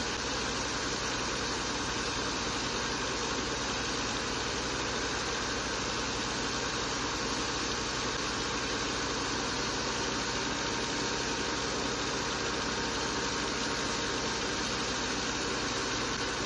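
Steady running of the sand-pumping machine's engine, mixed with the rush of sand-and-water slurry pouring from two pipes into a barge's steel hold. The sound stays even and unchanging throughout.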